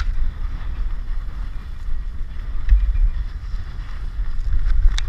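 Wind buffeting the microphone of a skier's action camera while skiing downhill, a gusty low rumble over the steady hiss of skis sliding on snow. A few brief clicks come at the start and near the end.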